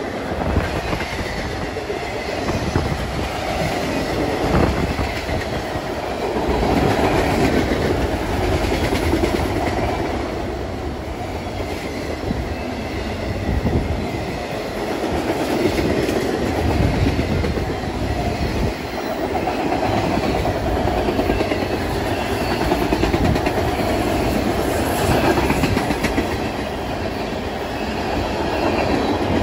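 Freight train rolling past, its wheels clacking steadily over the rail joints with a continuous rumble.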